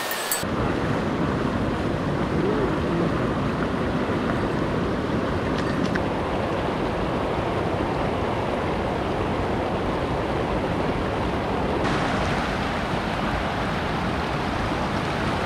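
A mountain river rushing, a loud steady wash of water noise that turns hissier about twelve seconds in.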